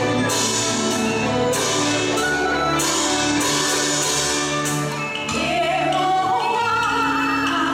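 Live folk-song performance by a traditional Chinese ensemble: pitched instruments over a steady percussion beat, joined by a sung melody about five seconds in.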